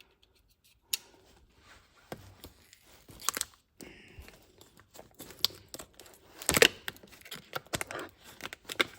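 Packaging of a pocket pry bar set being cut open with a sharp knife and pulled apart: scattered tearing, crinkling and small clicks. The loudest rip comes about six and a half seconds in.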